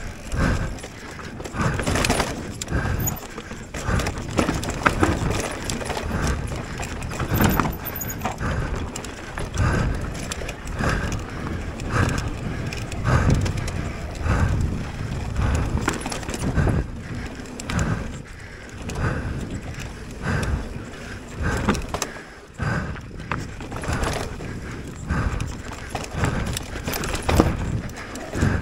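Mountain bike, a Giant Reign full-suspension bike, ridden fast down a dirt trail: tyres on loose dirt and the frame and drivetrain rattling and knocking unevenly over bumps and landings.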